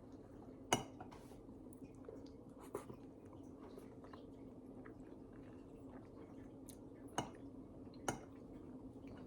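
Faint close-up chewing of food by a person eating, with four short sharp clicks spread through it and a low steady hum underneath.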